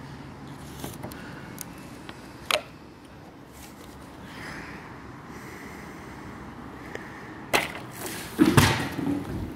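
Handling noise of a plastic water bottle, knocking and rustling against the pool's tiles near the end, over a steady background hiss. There is one sharp click about two and a half seconds in.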